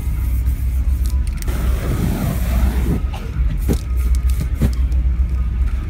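Steady low rumble, like a nearby idling vehicle, under an aerosol spray-paint can hissing in one burst of about a second and a half, the spray set alight to flame-torch the paint on the canvas. A few light clicks follow.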